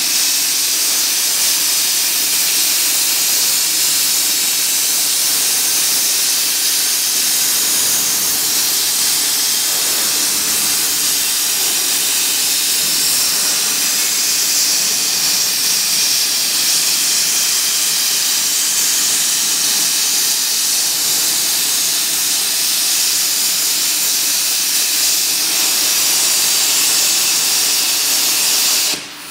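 Plasma arc cutting torch on a CNC gantry bevel head cutting steel plate: a loud, steady high hiss that cuts off abruptly near the end as the arc shuts off.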